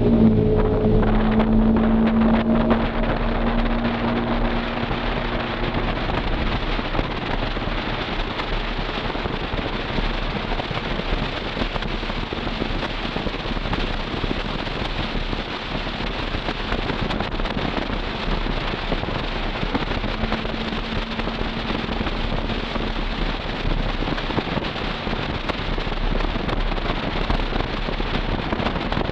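The 2000 Toyota 4Runner's Flowmaster Super 40 exhaust note is heard from inside the cabin while driving. It is plain for the first few seconds, then fades under a steady rushing road and wind noise, and comes back faintly about twenty seconds in.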